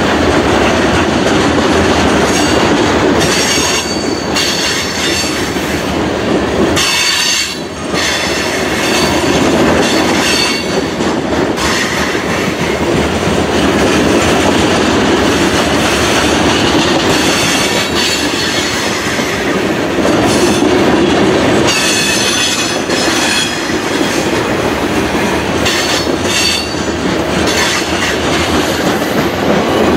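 Freight train cars rolling past: steady rumble and clatter of steel wheels on the rails, with high-pitched wheel squeal coming and going several times.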